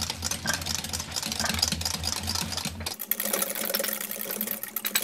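Wire balloon whisk beating eggs and yogurt in a glass bowl: a fast, continuous run of clicks and taps as the wires hit the glass and churn the batter.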